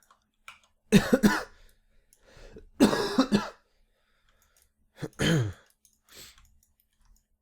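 A man coughing in three short fits a couple of seconds apart, from a lingering cold he is still getting over.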